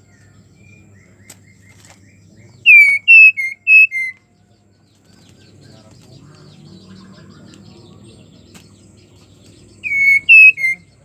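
Female white-rumped shama giving loud whistled calls: a quick run of about five short, down-curving notes about three seconds in, and three more near the end. It is the call of a female in breeding condition calling for a male.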